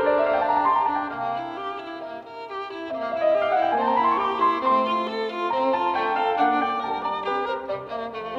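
Background instrumental music led by a violin, with rising runs of notes near the start and again about three to four seconds in.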